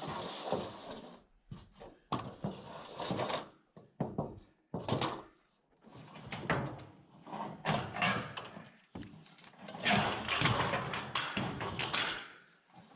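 Irregular knocks, thuds and scraping noises from hands-on work, coming in short bursts with brief pauses between them.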